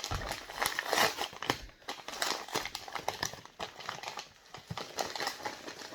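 Beard-care products and their packaging being handled: irregular rustling and crinkling with light knocks and taps.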